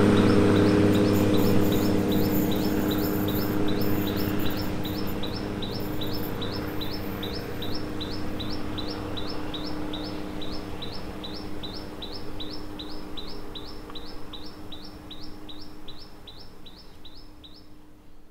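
Diesel railcar engine running as the train pulls away, its steady hum fading as it recedes, with a high chirp repeating about three times a second over it.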